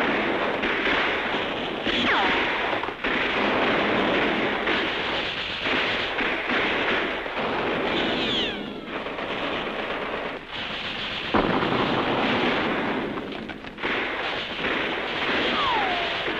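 Battle sound effects on an old film soundtrack: continuous rifle and machine-gun fire with explosions. A sharp blast comes about eleven seconds in. Three falling whistles, like incoming shells, sound near the start, the middle and the end.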